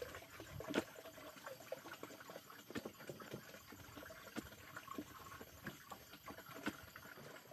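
A pointed wooden digging stick driven repeatedly into dry earth to dig a hole, making irregular crunches and scrapes of soil. A few sharper strikes stand out, the loudest about a second in.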